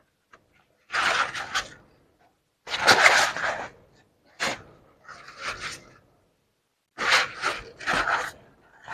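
Fabric bag rustling in a string of short bursts as hands unfold it, pull it open and handle the cloth.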